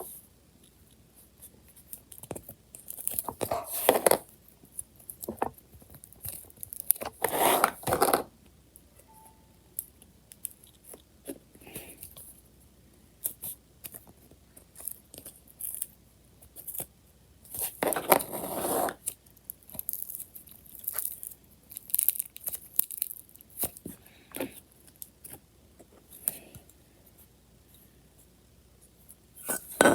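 Slime being pressed, poked and stretched by hand, giving irregular short clicks and crackles with a few longer presses about a second long.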